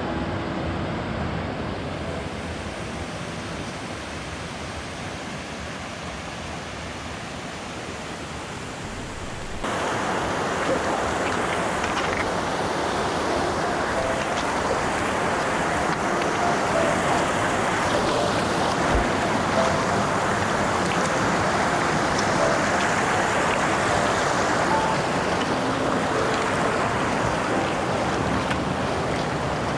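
Rushing water of a mountain stream, a steady rush that gets clearly louder about ten seconds in.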